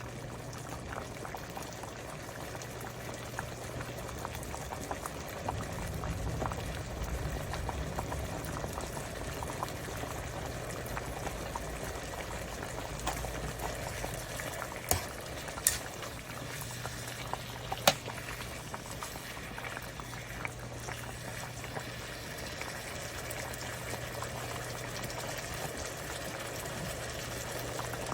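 A pot of potato gochujang stew bubbling at a boil, a steady crackle of small pops, over a steady low hum. A few sharp clicks stand out past the middle.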